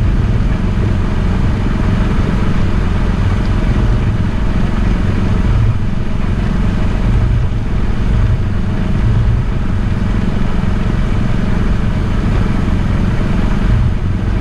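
Engine of the vehicle carrying the spray rig running steadily while it drives and sprays, a constant low rumble.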